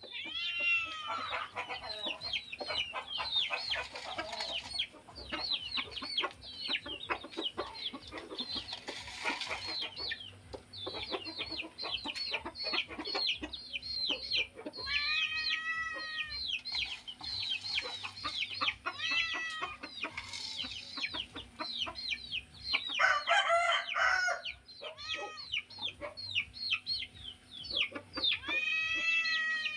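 Chickens clucking and chirping busily with many short, quick calls, while a rooster crows a few times, around the middle and near the end.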